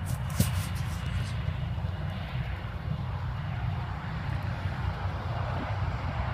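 Distant jet aircraft engines across the airfield, a steady low rumble with a noisy wash above it. A few short handling clicks come near the start.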